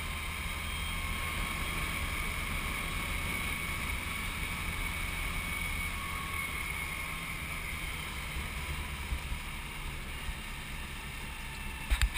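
A 1984 Land Rover Series III driving along at a steady speed, heard from inside its cab: a steady low engine drone with road and wind noise and a thin high steady whine. A couple of sharp knocks come right at the end.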